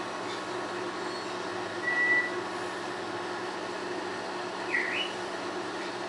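African grey parrot giving two short whistles: a brief level note about two seconds in, then a quick swooping whistle that dips and rises again near the end.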